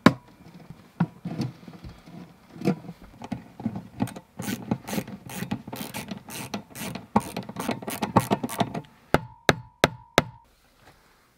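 Screwdriver tightening the clamp screws of non-metallic cable connectors on a metal electrical junction box: a long run of quick, irregular clicks that thins out and stops near the end.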